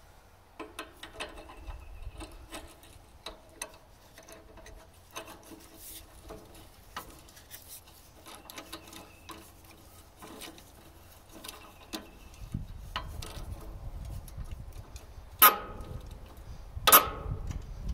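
Socket ratchet wrench tightening a nut on a tractor's stabilizer-chain bracket: irregular runs of short metallic clicks. Two loud metal clanks come near the end.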